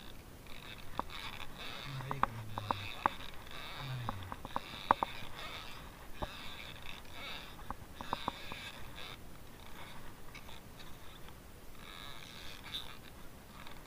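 Overhead slow-jigging reel being cranked in short turns: a rhythmic rasping winding sound, stopping and starting, with scattered sharp clicks.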